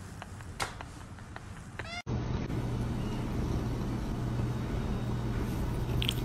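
A cat gives a short rising meow about two seconds in. The sound then cuts to a steady low hum, with a few short wet smacks near the end from a cat licking.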